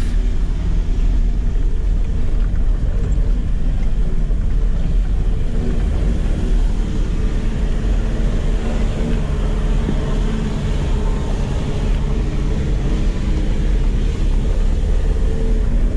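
Land Rover Defender 90 driving along a dirt track, heard inside the cab: a steady engine and drivetrain drone over a deep road rumble.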